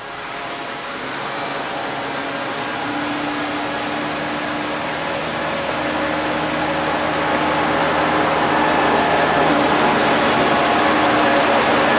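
A heavy engine running steadily, growing gradually louder, with a steady hum over a rushing noise.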